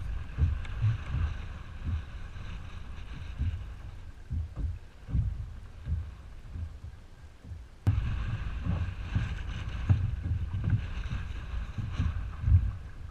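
Strong wind buffeting the microphone in irregular gusts, over a steady hiss of wind and choppy water; the gusts get louder about eight seconds in.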